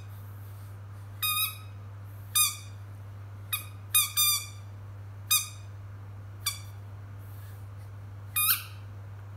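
A rubber squeaker in a dog toy being squeezed, giving about nine short, high squeaks at irregular intervals, some in quick pairs, each dipping slightly in pitch. A steady low hum runs underneath.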